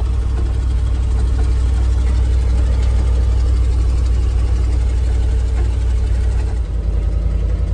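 An old truck's engine running steadily under way, heard from inside the open cab as a loud, even low drone mixed with road noise. About seven seconds in, the engine note shifts.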